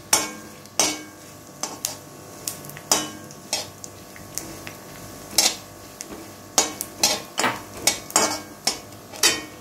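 Spatula stirring and knocking against a metal kadhai as cashews, almond flakes and chironji are lightly roasted in ghee, with a faint sizzle underneath. The knocks and scrapes come irregularly, about one or two a second.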